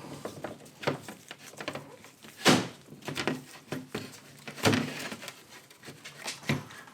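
Irregular knocks and clicks, about six in all and loudest about two and a half and four and a half seconds in, as the used oil filter and tools are handled ready for cutting the filter open.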